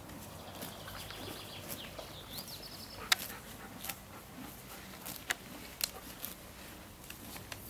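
Horse grazing: a run of crisp snaps as grass is torn off and chewed, the sharpest about three seconds in and a few more near five and six seconds. Small birds chirp in the background during the first half.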